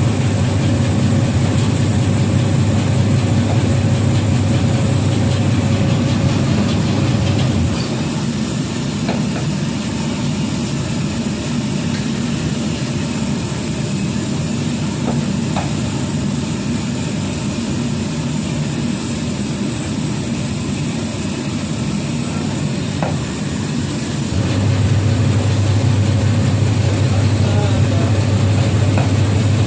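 Electric motor of a meatball-forming machine running with a steady hum and a faint high whine. The low hum drops off about a quarter of the way in and returns strongly near the end, with a few faint clicks in between.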